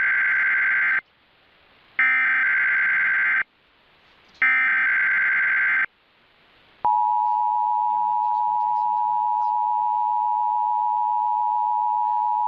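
Emergency Alert System monthly test. Three roughly one-and-a-half-second bursts of the SAME digital header, a buzzing data screech, sound with short gaps between them. About seven seconds in, the steady two-tone EAS attention signal (853 and 960 Hz together) begins and holds, marking the start of the alert message.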